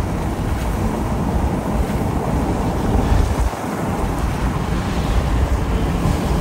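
Strong storm wind rushing past and buffeting the microphone of a moving vehicle, a heavy low rumble that eases briefly about three and a half seconds in.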